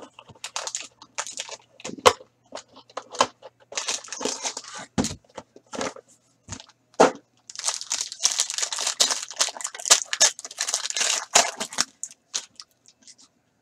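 A foil hockey card pack wrapper being torn open and crumpled by hand: irregular crinkling and crackling, densest in the second half, with a few sharp knocks of the box and cards.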